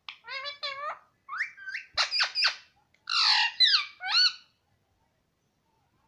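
Indian ringneck parakeet calling in a quick string of short chattering notes that swoop up and down in pitch, falling silent about four and a half seconds in.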